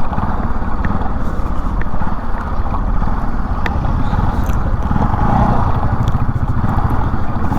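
Bajaj Pulsar NS200 single-cylinder motorcycle engine running steadily while being ridden.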